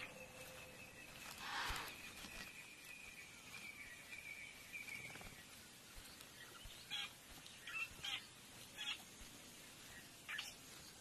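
Faint bush ambience: a thin, high steady tone that slowly falls and fades out about five seconds in, then a few short bird chirps scattered through the second half.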